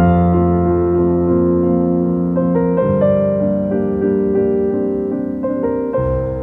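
Slow piano music, with held chords that change every couple of seconds.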